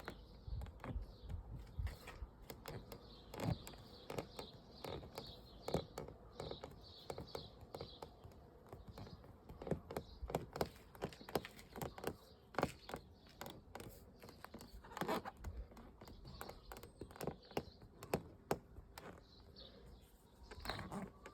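Interior trim of a Volkswagen Passat B8 squeaking and clicking in the cabin: a string of short high chirps several times a second, mixed with irregular small clicks and creaks over a faint low rumble.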